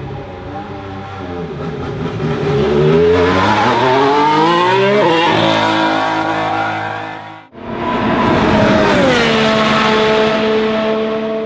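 Formula 1 car's turbocharged V6 engine accelerating hard, its pitch climbing through the revs with a gear change about five seconds in. After a sudden cut, the engine is heard again, and its note falls about nine seconds in and then holds steady.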